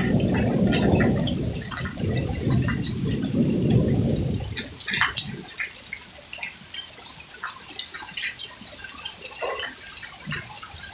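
Storm water rushing and gurgling for about the first four seconds, then stopping, leaving scattered drips and ticks of water falling.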